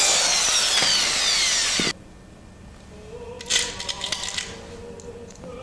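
Electric hand drill boring into a hardwood beam, its motor whine falling in pitch, cutting off abruptly just under two seconds in. A few light clicks and clinks follow about a second and a half later.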